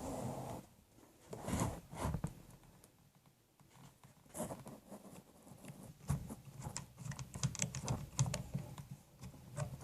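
Small irregular clicks, taps and scrapes of a screwdriver and hands working at the screw of an AK rifle's pistol grip, scattered at first and busier from about four seconds in.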